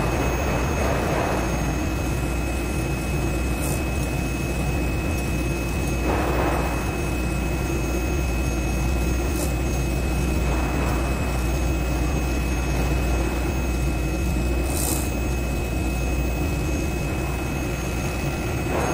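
CNC knife-head foam cutting machine running as it cuts a thick foam board: a steady low hum with a constant high tone, and a rushing swell about every five seconds as the head moves. A few short hisses come through on top.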